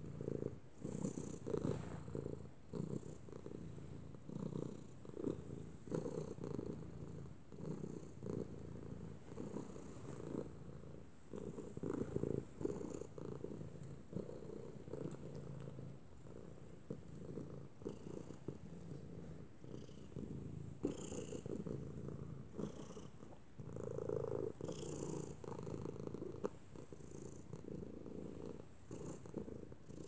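A cat purring: a low, rhythmic rumble that swells and fades every second or two.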